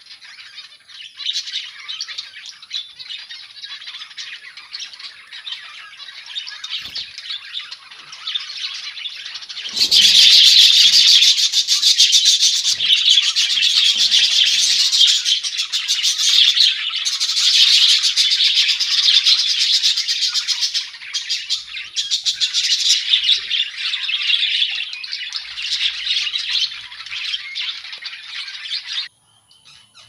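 A busy aviary colony of budgerigars and zebra finches chirping and chattering without pause. It grows much louder about a third of the way in, then cuts off suddenly near the end.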